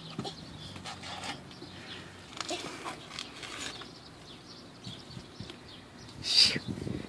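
Faint scuffs and rustles of a toddler crawling on a concrete patio, with a brief louder scrape about six seconds in.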